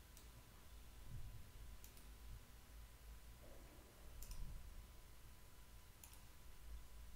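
Four faint computer-mouse clicks, about two seconds apart, over a low background hum.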